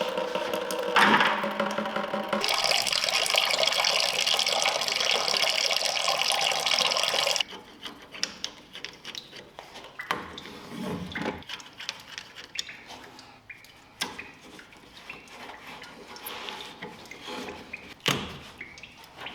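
A loud, steady rushing hiss for about five seconds that cuts off abruptly, then scattered light knocks and clinks.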